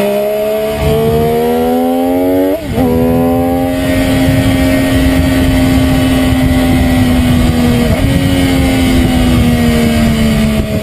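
MV Agusta F3's three-cylinder engine running hard at high revs. The revs climb, there is a quick upshift about two and a half seconds in, the engine holds high revs with another brief break near eight seconds, and the pitch slowly falls toward the end.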